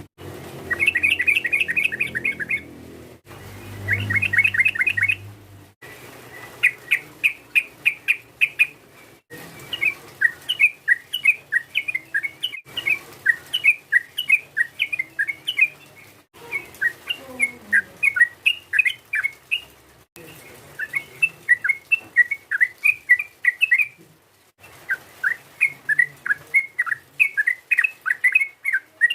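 Yellow-vented bulbul (trucukan) singing: quick, bubbly phrases of short chirpy notes, several notes a second, repeated back to back with abrupt breaks every few seconds.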